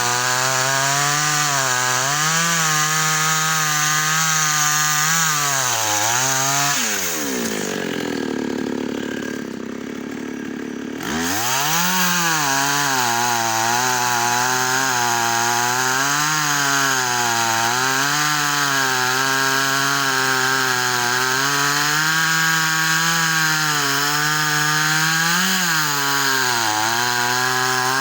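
Chainsaw engine running at high revs, its pitch wavering as the chain bites into wood. About seven seconds in the throttle is let off and the engine falls toward idle, then about four seconds later it revs back up and keeps cutting.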